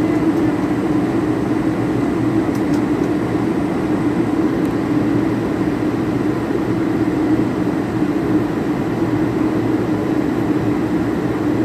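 Airliner cabin noise: the steady, low drone of the jet engines and rushing air heard inside the passenger cabin.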